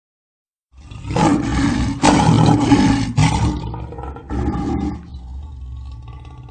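Lion roaring: a loud, drawn-out roar that starts just under a second in, swelling two or three times, followed by a few shorter, weaker grunts that fade away.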